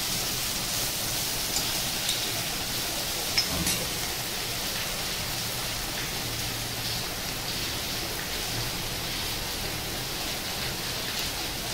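Onion and prawn masala sizzling steadily in oil in a cast-iron kadai, an even hiss, with a couple of faint taps of the steel spoon on the pan about three and a half seconds in.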